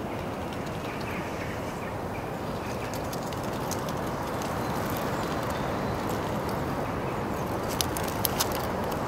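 Outdoor city ambience: a steady rush of background noise, with a few sharp clicks near the end.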